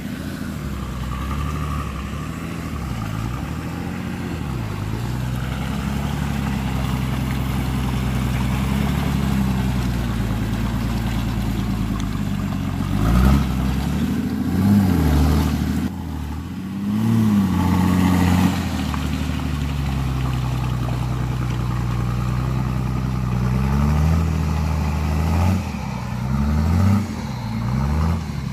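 Nissan Patrol 4x4 engine working through deep mud, with the revs rising and falling over and over as the throttle is blipped. Sharper revs come several times in the middle and again near the end.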